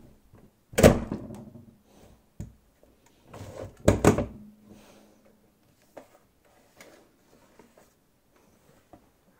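The Cinch binding machine's hand-lever hole punch clunking twice, about three seconds apart, as its handle is worked to punch wire-binding holes through a stack of paper. Quieter paper rustling and small clicks follow as the punched sheets are taken out.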